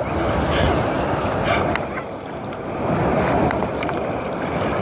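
Ocean surf washing onto the beach in a steady noisy rush that dips and swells, with wind buffeting the microphone.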